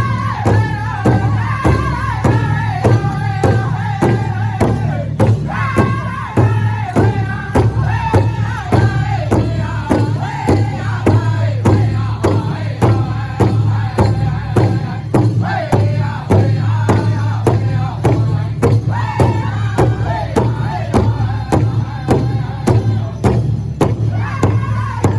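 Powwow drum group singing together over a steady, evenly paced drumbeat of about two to three strikes a second, the sung phrases stepping downward.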